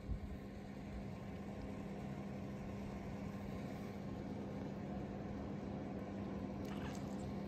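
Steady low machine hum with one constant tone, even and unchanging, and a brief faint crackle of small clicks near the end.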